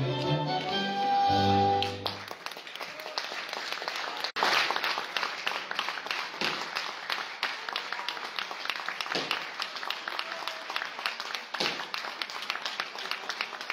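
Dance-band music ending on a held final note about two seconds in, followed by audience applause that carries on.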